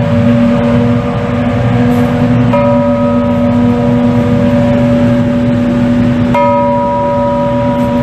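A bronze bell hung in an iron yoke, rung by pulling its cord, tolling slowly. It is struck twice, about four seconds apart, and its ringing carries on between strokes. This is a memorial toll.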